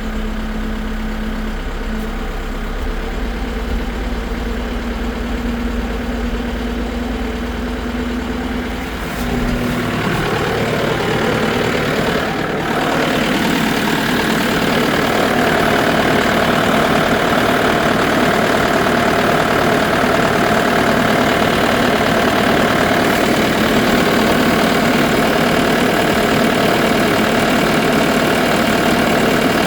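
Tractor engine running steadily at idle, then brought up to a higher RPM about nine seconds in and again a few seconds later, holding a steady, louder speed after that while the air-conditioning is charged with refrigerant.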